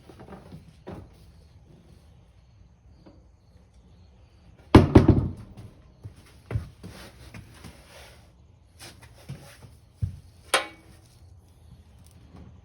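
Knocks and a clatter of hard objects being handled and set down, loudest a little under five seconds in, with a ringing metal clank near the end.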